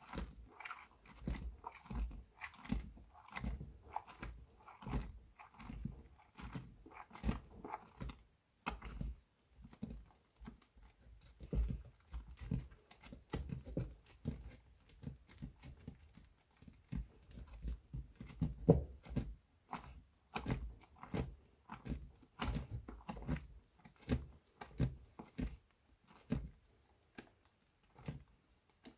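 Soaked glycerin soap plates being washed: a steady run of soft, wet squishing strokes, about two a second, easing off briefly a couple of times.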